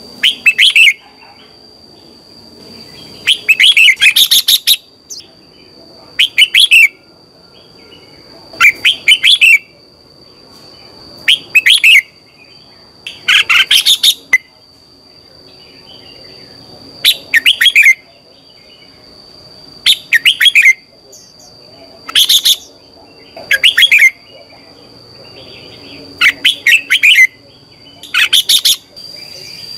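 Red-whiskered bulbul singing: short, loud whistled phrases, repeated about every two seconds, with a few longer ones. A thin, steady high-pitched tone runs underneath.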